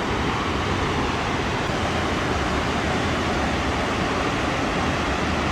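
Burney Falls waterfall rushing in a steady, unbroken wash of falling water.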